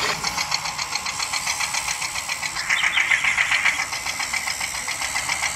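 Miniature toy tractor's small motor running as it drives, with a rapid, even ticking and little low rumble; it gets brighter and louder for about a second around the middle.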